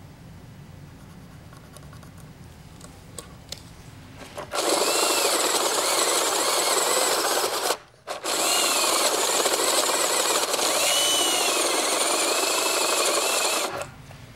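Power drill with a Forstner bit boring a flat-bottomed cup hole into a solid wood column for a hidden hinge. The drilling starts about four seconds in, stops briefly about halfway, then runs again until just before the end. Its motor whine rises and falls as it cuts.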